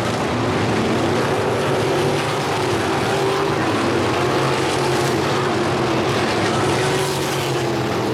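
Crate sprint cars' V8 engines running around a dirt oval: a steady drone of several engines, their pitch wavering slightly as the cars go through the turns and down the straights.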